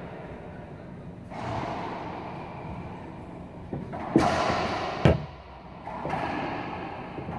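Racquetball rally in an enclosed court: the rubber ball is smacked by racquets and rebounds off the walls and floor, sharp echoing hits with the two loudest about four and five seconds in.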